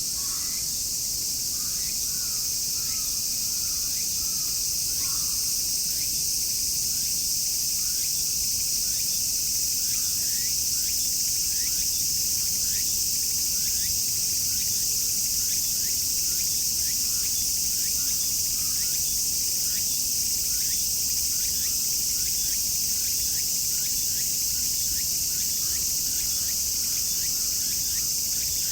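Dense chorus of summer cicadas: a steady, high-pitched drone. Short faint chirps repeat underneath it throughout.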